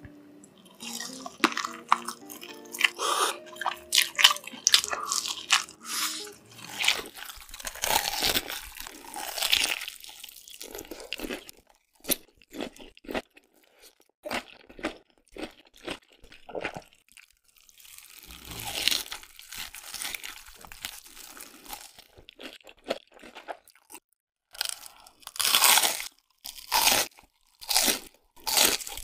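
Close, loud crunching bites and chewing of crispy fried food coated in crushed Hot Cheetos, in repeated bursts with short pauses between bites. Soft background music plays under the first several seconds.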